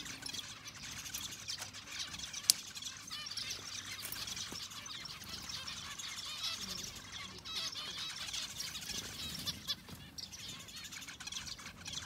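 A chorus of many small birds chirping and calling over one another, high-pitched and continuous. A single sharp click comes about two and a half seconds in.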